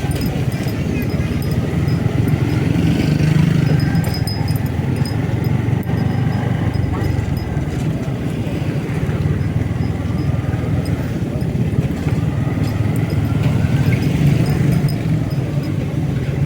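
Motorcycle being ridden along a road: a steady engine note with road noise, swelling a little about three seconds in and again near the end.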